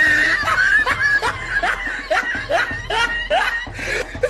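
Laughter in quick, short repeated bursts, one after another.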